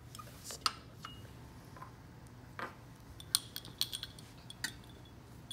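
Small glassware clinking and tapping as it is handled and set down on a lab bench and balance: a scattering of separate light knocks over a steady low hum.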